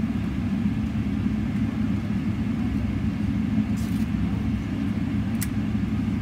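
Steady low cabin rumble of a Boeing 777-300ER taxiing on the ground after landing, with a short click about five and a half seconds in.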